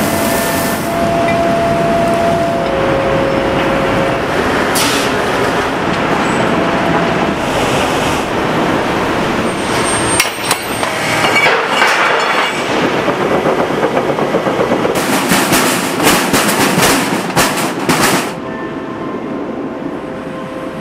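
Steel foundry noise: a loud, steady industrial din around a scrap-melting furnace, with scrap-metal clatter and a run of sharp metal clanks and knocks between about 15 and 18 seconds in, after which it drops to a quieter steady hum.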